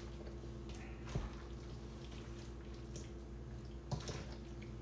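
Faint wet squishing of a spoon stirring a mayonnaise-dressed rutabaga and egg salad in a stainless steel bowl. The spoon knocks lightly against the bowl about a second in and again near the end, over a low steady hum.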